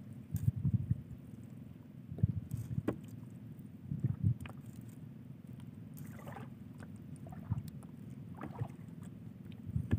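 Irregular thumps and knocks on a small fishing boat over a steady low rumble of water and wind, with a couple of brief splashes in the second half.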